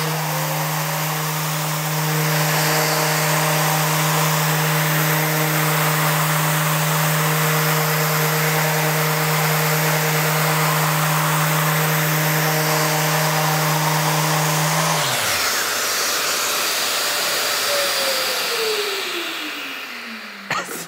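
Maxxt brushless random orbital sander running at full speed on rough-sawn wood, with a dust extractor drawing air through its hose. About 15 seconds in the sander switches off and spins down quickly. The extractor runs on a few seconds longer, then winds down with a falling whine.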